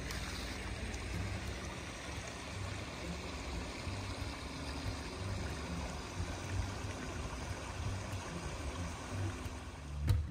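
Small woodland stream flowing and trickling steadily over rocks.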